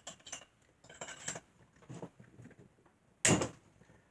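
Small metal tools and chainsaw parts clicking and clinking during disassembly, with one louder metallic clatter a little over three seconds in.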